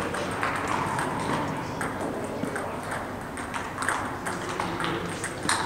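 Table tennis balls clicking quickly and irregularly off bats and table tops during rallies, with more rallies at neighbouring tables adding to the clatter in a large hall.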